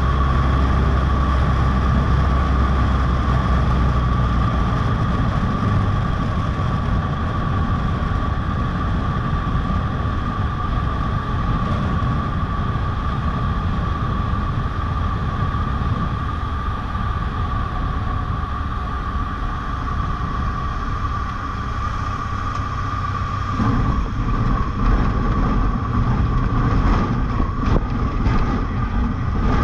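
Cessna 152's four-cylinder Lycoming engine and propeller running steadily, heard from inside the cabin, with a steady high whine above the low drone. About 23 seconds in the engine note grows louder and heavier, and a few knocks come near the end.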